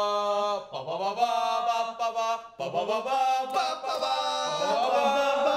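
Male voices singing a cappella, holding long notes that slide in pitch between phrases.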